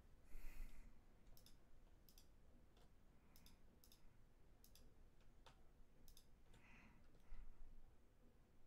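Faint, irregular computer mouse clicks and key presses, about a dozen spread out, with two short soft hissing noises, one about half a second in and one near the end.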